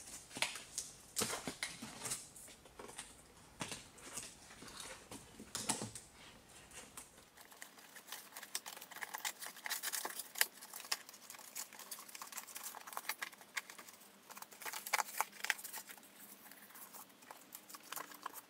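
Plastic door evaporation barrier crinkling and rustling as it is handled and pressed back onto the inner door panel, with many short irregular crackles and taps.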